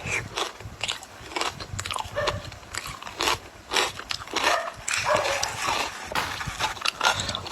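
Ice being bitten and chewed close up: a run of irregular crunches and cracks, with wet mouth sounds and a few short pitched squeaks between them.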